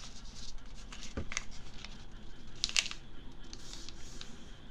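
A sheet of origami paper rustling and being creased flat by hand against a table. It gives scattered short crinkles, the sharpest a little past the middle, and a soft thump about a second in.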